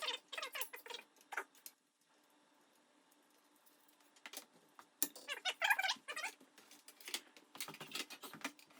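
Bicycle handlebar and stem being handled, with metal parts clinking and rattling in short bursts: one cluster at the start, a quiet gap, then a longer jangling burst about five seconds in and scattered clicks near the end.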